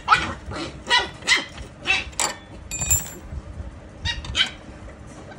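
A dog barking repeatedly in short, sharp barks, a quick run of them in the first couple of seconds and two more about four seconds in.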